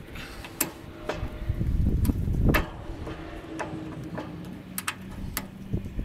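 Sharp metal clicks and clinks of a pin and steel spacer washers being worked off a snowplow shoe's post, over a low rumble that swells briefly about two seconds in.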